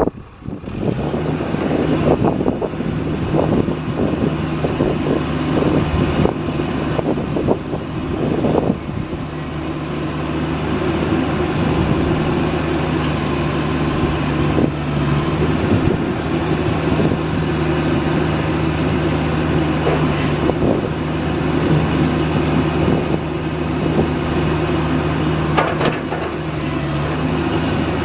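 CAT excavator's diesel engine running steadily at idle, with scattered clunks and knocks over it in the first several seconds.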